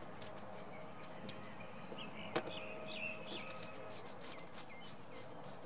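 Small clicks of a screwdriver driving a small screw into a doorbell push-button plate, with a sharper tick about two and a half seconds in. Faint bird chirps, several short calls close together just past the middle.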